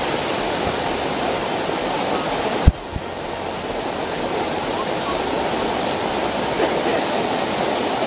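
Heavy rain pouring down in a steady rush, heard from under a plastic tarp shelter. A sharp click comes about two and a half seconds in, after which the rain is briefly a little quieter before building back.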